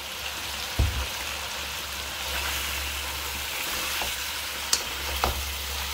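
Mutton karahi sizzling in hot oil in a karahi wok as it is stirred, with a few knocks of the spoon against the pan over a steady low hum. The water has cooked off and the oil has separated, the final frying stage of the masala.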